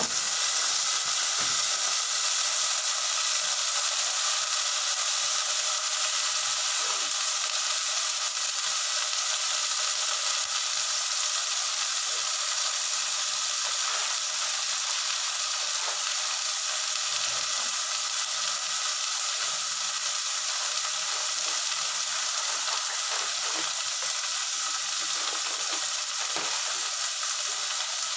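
Meat sizzling in a saucepan: a steady hiss with scattered small pops and crackles.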